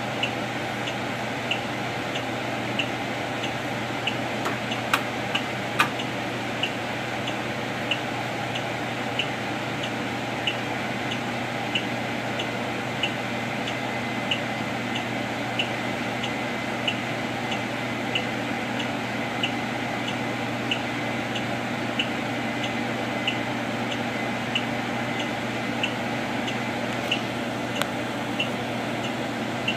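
Stopped bus idling, heard from inside the cabin as a steady low hum, with a light tick repeating about one and a half times a second. Two sharper clicks come about five and six seconds in.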